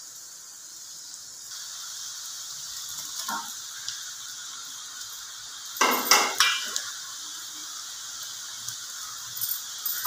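Namak pare (diamonds of maida dough) deep-frying in hot oil in a kadhai, a steady sizzling hiss. A metal utensil clinks and knocks against the pan a few times, loudest in a quick cluster about six seconds in.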